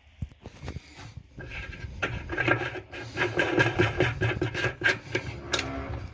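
Scrubbing: quick rubbing and scraping strokes, a few scattered ones at first, then dense and steady from about two seconds in, stopping near the end.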